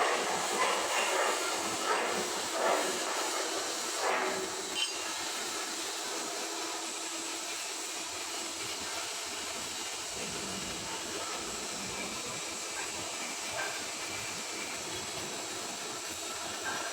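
Stick (SMAW) welding arc on a carbon steel pipe joint: a steady crackling hiss, with a few louder pops in the first few seconds.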